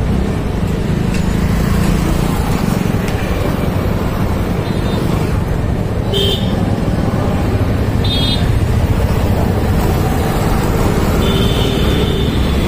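Ride on a motorcycle through town traffic: the bike's engine runs steadily under traffic noise, and short high horn beeps sound a few times, the last one held a little longer.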